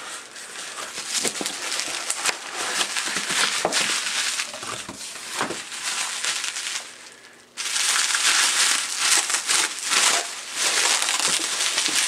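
Plastic bubble wrap crinkling and crackling as it is handled and unwrapped by hand. It dies down briefly about two-thirds of the way in, then comes back louder and denser.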